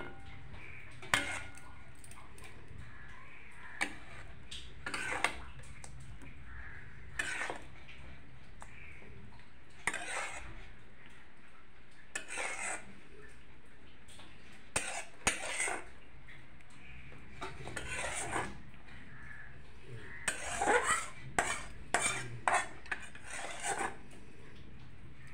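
Steel ladle scraping and clinking against a steel kadhai and a steel bowl while thick egg curry is scooped and served, in scattered strokes with pauses between, busiest near the end.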